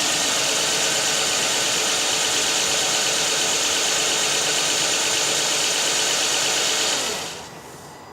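2007 Nissan Quest's 3.5-litre V6 engine running steadily during a spark test on its ignition coils. About seven seconds in it is switched off and the sound dies away.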